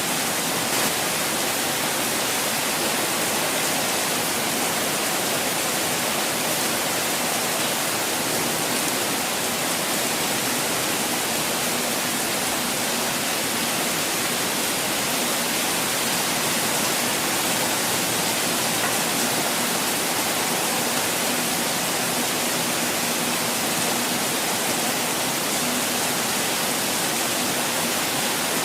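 Steady, even rush of constantly falling water, with a hiss that is strongest in the upper range.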